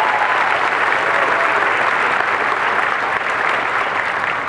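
A large audience applauding, the clapping loud and steady, beginning to die down near the end.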